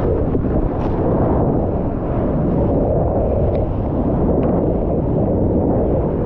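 Breaking surf and whitewater heard through a mouth-mounted GoPro, with wind buffeting the mic: a steady low rush of water noise.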